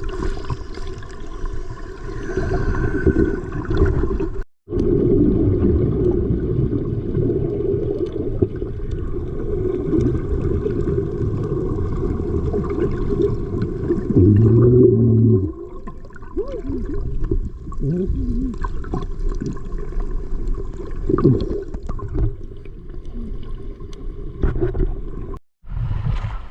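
Loud, muffled rumbling and gurgling of water, heavy in the low end, broken twice by a brief total dropout.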